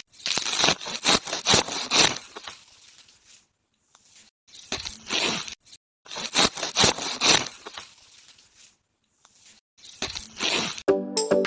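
Young green grass shoots being torn out of dry soil by hand and handled in bunches: several bursts of rustling and tearing separated by brief silences.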